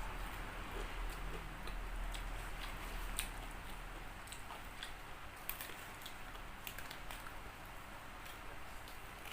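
Close-miked chewing of crispy fried chicken: irregular crunches and sharp mouth clicks, with the loudest about three seconds in and again about five and a half seconds in.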